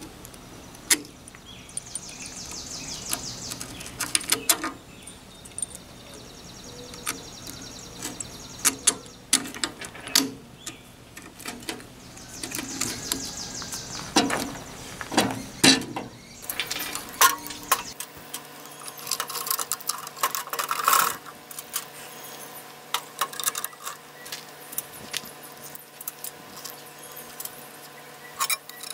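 Loose steel bolts, nuts and washers clinking and tapping as they are handled and fitted through a rusty strut top mount, with scattered sharp clinks and two short runs of fast, high ticking.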